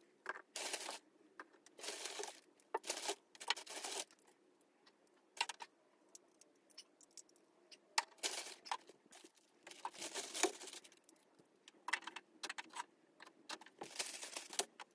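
Small collectible figurines and knickknacks being set down one by one on a bookshelf: scattered light clicks and taps, with brief rustling between them.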